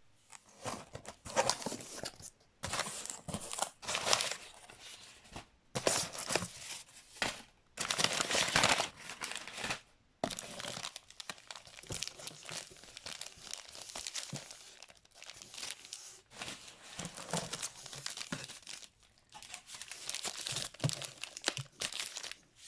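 Firecracker packaging being handled, crinkled and torn open: irregular bursts of rustling and tearing with short pauses between them.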